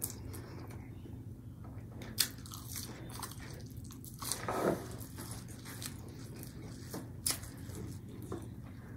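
Close-miked chewing and biting of breaded fish sticks, with soft crunches. A couple of sharp clicks stand out, about two seconds in and again near the end, and a louder burst of noise comes a little past halfway, over a low steady hum.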